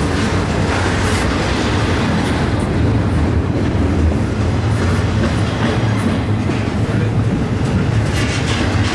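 Union Pacific double-stack intermodal well cars rolling past close by: a loud, steady rumble of steel wheels on rail, with clacking from the wheels here and there.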